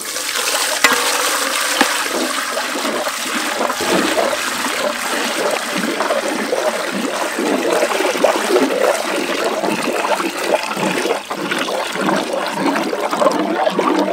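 A thick stream of milky liquid poured into a large aluminium pot, splashing and churning steadily as it fills, with a ladle stirring through it. The pour starts abruptly.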